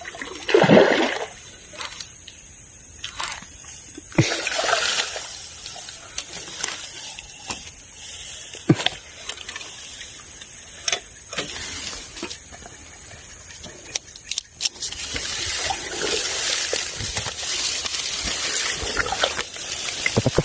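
Water splashing and sloshing: a loud splash about a second in and another about four seconds in, scattered sharp clicks, then steadier splashing and rustling from about fifteen seconds in.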